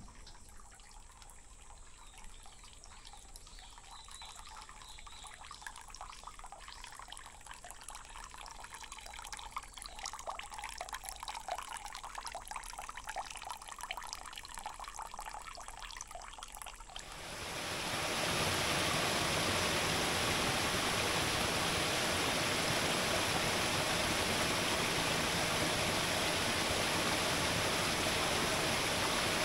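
Water trickling and splashing from a dragon-shaped spout into a stone hand-washing basin (temizuya), a soft, finely pattering trickle. About seventeen seconds in it fades into the louder, even rush of a small mountain stream cascading over rocks.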